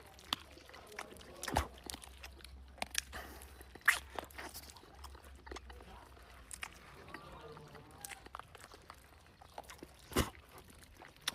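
A person eating chicken: irregular chewing and biting, with wet smacks and sharp clicks, a few of them louder than the rest.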